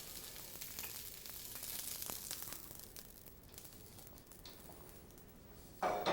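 Snow peas sizzling as they sauté in sesame oil in a hot pan. The sizzle is soft and thins out about halfway through, with a few light clicks of the peas moving in the pan.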